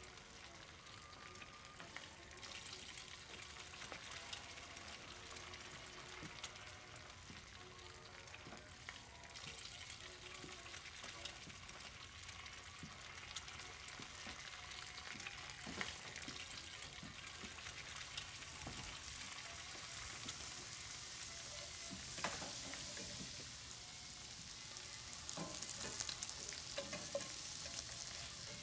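Food frying in a pan, a steady sizzle with fine crackling and occasional utensil clicks, growing louder over the last third.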